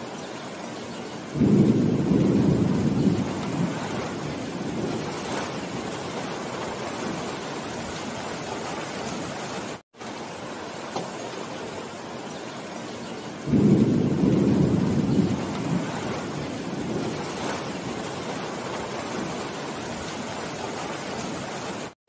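Steady heavy rain falling on leafy trees, with a loud low rumble of thunder about a second and a half in that fades over a few seconds. The same thunder rumble comes again about twelve seconds later, after the sound cuts out for an instant, as the track loops.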